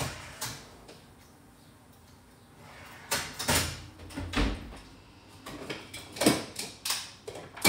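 Kitchen clatter: a run of knocks and bumps of things being handled at the counter, starting about three seconds in, with a louder knock near the end.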